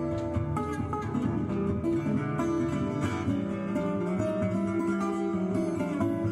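Resonator guitar fingerpicked in an acoustic blues instrumental break: a steady low bass line under picked treble notes.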